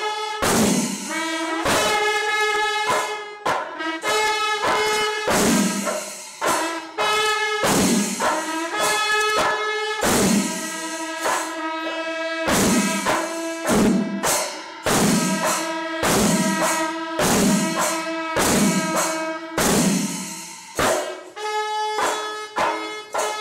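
Panchari melam ensemble playing: chenda drums and ilathalam cymbals strike repeatedly under long held notes from the kombu horns and kuzhal, the held notes shifting in pitch every few seconds.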